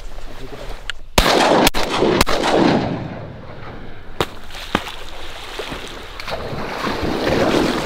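Shotgun blasts: three in quick succession starting about a second in, then one more about four seconds in.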